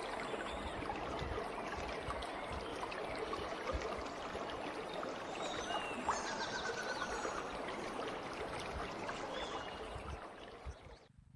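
Steady noise of running water, like a small stream trickling, which cuts off suddenly near the end.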